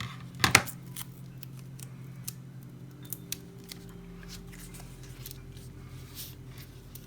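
Scissors snipping foam tape, with small clicks of crafting materials being handled; a louder, short rasping cut about half a second in.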